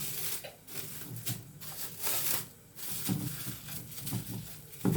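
Rustling and handling noises: a run of short scratchy bursts with brief pauses between them.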